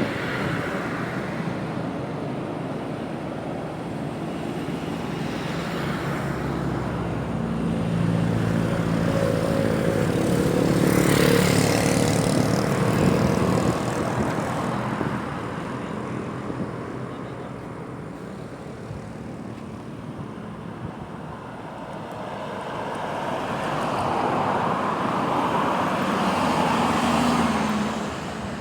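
Boat engine running over constant wind and water hiss. The engine grows louder and fades twice: a long swell in the first half and a shorter one near the end.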